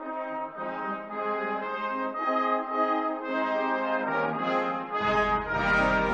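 Brass band playing a slow hymn tune in sustained chords, with no singing. About five seconds in, the bass instruments come in and the music swells louder.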